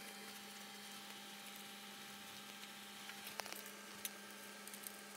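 Quiet room tone: a steady low electrical hum, with a few faint light ticks about three and a half, four and nearly five seconds in.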